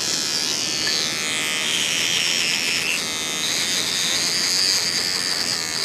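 Electric toothbrush buzzing steadily as it scrubs wet ironstone and quartz off a gold nugget, its high whine wavering as the brush is pressed against the specimen.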